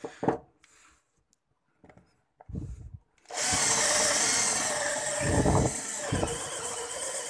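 A 12-volt cordless drill boring into a block of wood with a 10 mm bit. After a few brief knocks, the motor starts a little over three seconds in and runs steadily under load as the bit cuts.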